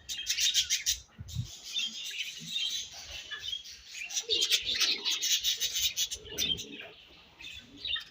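Several budgerigars chirping and chattering in fast, overlapping bursts, easing off briefly about a second in and again near the end.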